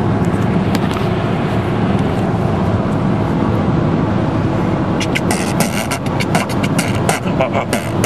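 Steady road and engine noise inside a moving car. About five seconds in, a quick, even run of sharp clicks and pops begins: mouth percussion, beatboxing at close range.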